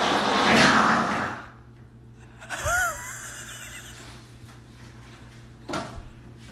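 A woman's loud, breathy gasp, followed about two and a half seconds later by a short high-pitched squeak and a brief breath near the end.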